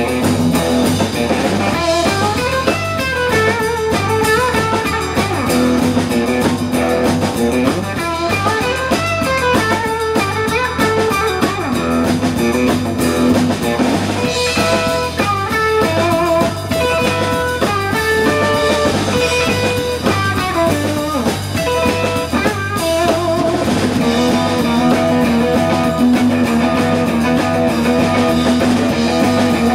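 Live blues-rock band playing an instrumental passage without vocals: guitar playing melodic lines over a drum kit's steady beat.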